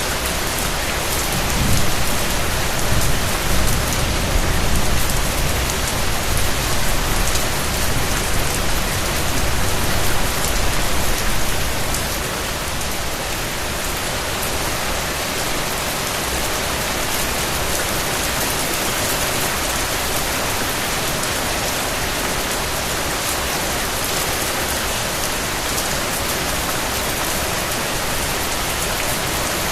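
Steady rain falling, an even, dense hiss of raindrops. During roughly the first twelve seconds a low rumble swells under the rain and then fades away.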